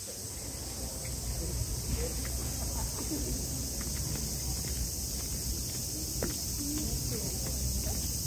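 Outdoor ambience: a steady, high-pitched insect drone over a low rumble, with faint distant voices and a few small clicks.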